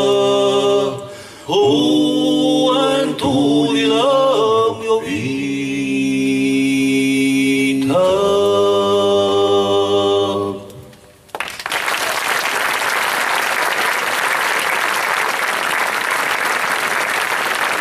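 A small group of male voices singing in harmony, holding long chords as the song ends. About eleven seconds in the singing stops and the audience breaks into steady applause.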